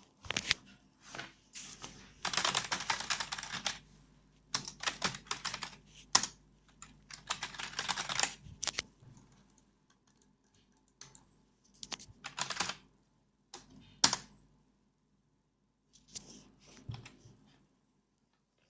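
Typing on a computer keyboard in several quick bursts of key presses, with pauses and scattered single keystrokes between them.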